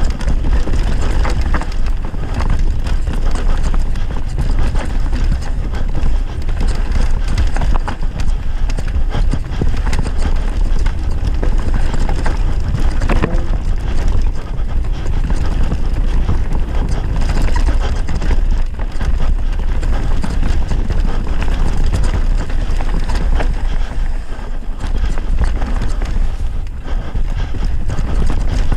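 Mountain bike descending a dirt singletrack: a steady rumble of wind on the microphone under tyre noise on the trail and frequent rattles and knocks from the bike over bumps.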